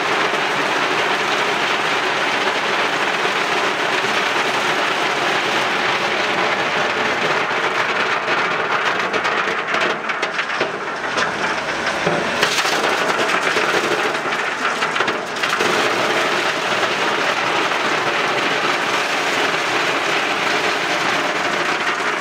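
Loose coal pouring off a delivery truck's conveyor and rattling down a sheet-metal chute, a steady dense clatter. About ten to fifteen seconds in it turns uneven, with a few separate knocks.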